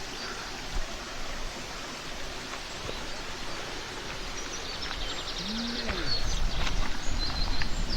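Steady rushing of a waterfall, growing louder in the second half, with small birds chirping over it.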